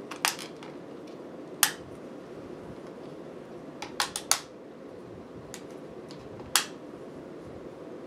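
Hard plastic toy pieces, Kamen Rider Progrise keys, being handled: about half a dozen sharp plastic clicks at irregular intervals, with a quick run of three about four seconds in, over a steady low hiss.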